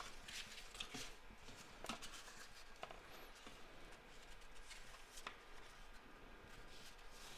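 Faint rustling and a few light taps of a hardcover art book being handled and its pages turned.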